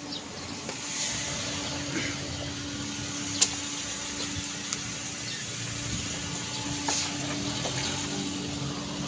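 Steady street background noise with a low, even hum and two short sharp clicks, one about three and a half seconds in and one about seven seconds in.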